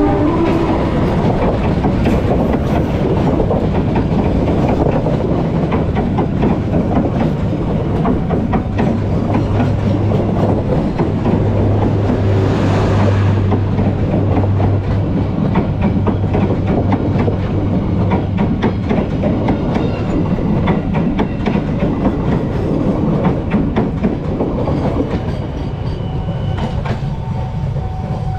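Diesel-hauled passenger train passing close by: the locomotive goes by first, then a long run of coaches with a steady rumble and a rapid clickety-clack of wheels over the rail joints. The sound eases off slightly near the end as the last coach passes.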